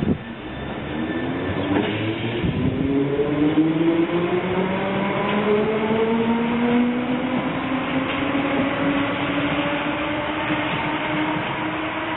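District Line D78 stock train pulling away from the platform, its traction motors whining in several tones that rise in pitch as it accelerates and then level off as it recedes. A single thud at the very start.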